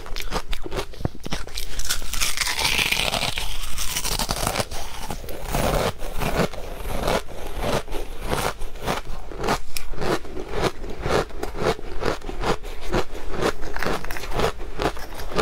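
Powdery shaved ice being bitten and chewed close to the microphone: a continuous run of crisp crunches, with a softer hissing stretch about two to four seconds in.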